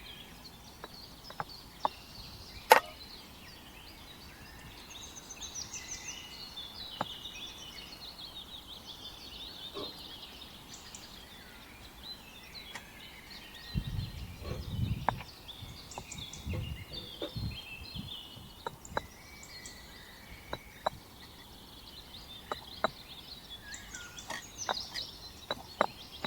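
Small birds chirping on and off throughout, over scattered sharp clicks and knocks and a few dull thumps about halfway through.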